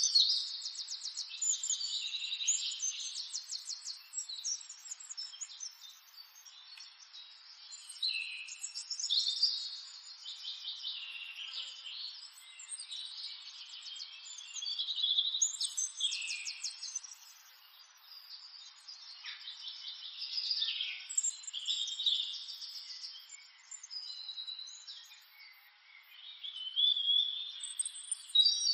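Small songbirds chirping and singing in bursts: quick high calls, short pitch glides and rapid trills.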